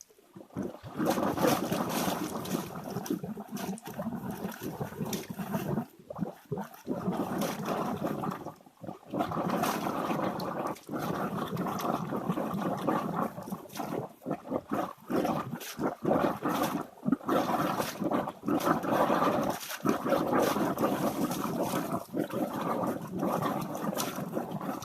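Running water splashing and gurgling, an uneven rushing sound with frequent brief dips.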